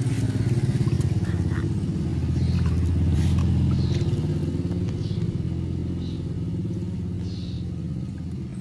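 A vehicle engine running nearby, growing louder to a peak about three seconds in and then slowly fading, like one passing by. Small splashes and drips of water from a basin sound faintly over it.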